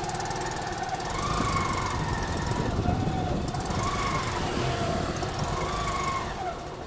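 Motor vehicle engines running in street traffic, a steady mix of engine hum with some wavering pitch.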